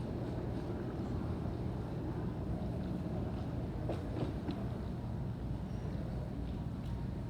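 Airport terminal ambience: a steady low rumble with a few faint clicks and knocks scattered through it.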